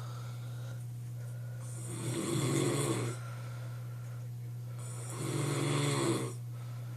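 A sleeping man snoring: two snores, each a little over a second long, about three and a half seconds apart, over a steady low hum.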